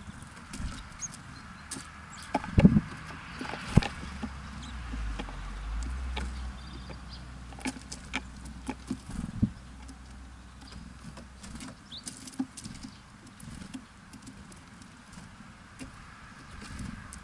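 Small birds at a feeder: irregular sharp taps and clicks of pecking and landing, with a few faint high chirps. A low rumble runs for several seconds in the middle.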